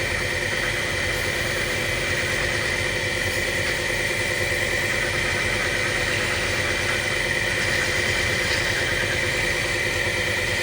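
Woodturning lathe's electric motor running at a steady speed, with a constant whine and hum and no change in pitch.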